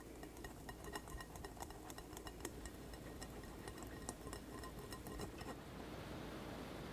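Hard-boiled egg yolk being rubbed by hand through a fine wire-mesh strainer over a glass bowl: dense, irregular light ticks and scratches. The ticking stops about five and a half seconds in, leaving a faint hiss.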